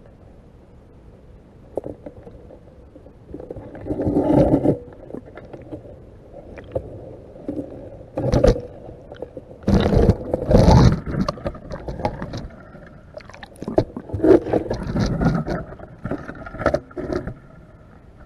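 Irregular knocks, scrapes and rushes of water against an underwater camera housing as the crab trap it sits in is jostled and hauled up. They come in loud bunches a few seconds apart.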